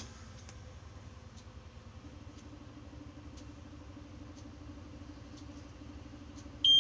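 Low steady hum in a coach bus's driver's cab with the electrics switched on, with a faint tick about once a second and a second steady hum coming in about two seconds in. Right at the end a loud, high dashboard warning buzzer starts beeping.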